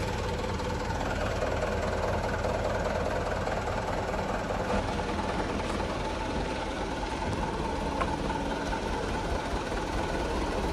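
A truck engine idling steadily.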